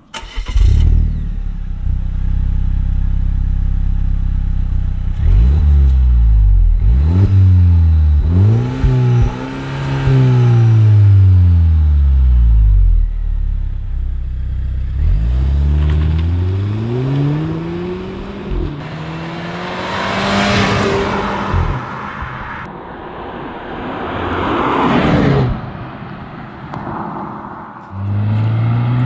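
Volvo V40 T5 R engine through a Polestar sports exhaust, revved several times, each rev climbing and then falling back to idle. A louder stretch of rushing noise comes about two-thirds of the way through.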